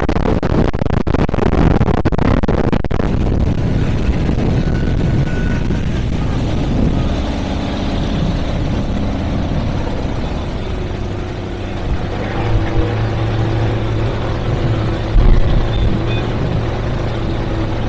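Donzi ZRC speedboat's engines running underway at speed, with wind buffeting the microphone hard for the first few seconds. The engine settles into a steady drone partway through.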